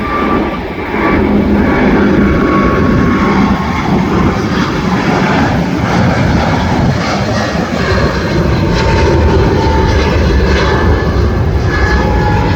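A jet airliner's engines running loud and steady close by, rising to full loudness about a second in, with thin whining tones over a rushing noise.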